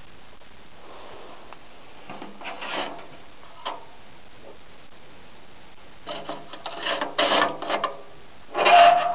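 Sheet-metal card holder of a postcard projector being handled: scraping and rattling of metal with a postcard sliding on the platen, a brief cluster a few seconds in and a longer, louder run over the last three seconds that ends with a short squeak.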